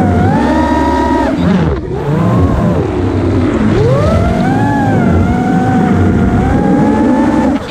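Brushless motors and propellers of an iFlight DC5 five-inch FPV quadcopter whining, heard through the onboard GoPro. The pitch falls and climbs back twice as the throttle is eased and pushed again, then holds steady.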